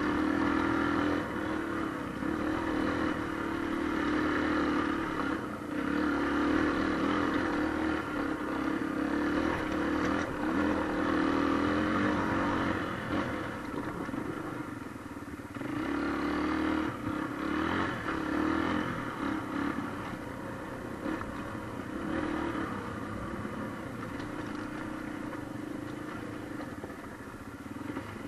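Trail motorcycle engine running as it rides a rough, muddy dirt track, the engine note swelling and easing as the throttle opens and closes, with occasional knocks from the bumpy ground.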